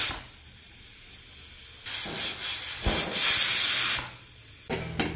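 Aluminium stovetop pressure cooker whistling: the weighted vent on the lid lets off steam in a loud hiss. One hiss cuts off just as the sound begins, and another starts about two seconds in, grows louder, and stops about two seconds later. These whistles are the count that tells the chicken is cooked.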